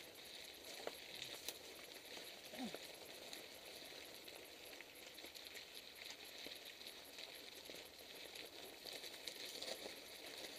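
Faint crunch of mountain bike tyres rolling over a loose gravel track, with many small clicks and rattles from the bike.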